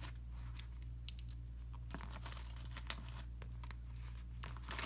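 Makeup brushes rustling and clicking against a clear vinyl cosmetic pouch as they are slipped in and handled, a scatter of short crinkles and taps. A steady low hum runs underneath.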